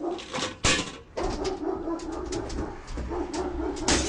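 A dog growling in three long, rough stretches, with short sharp sounds between them; the loudest comes a little under a second in.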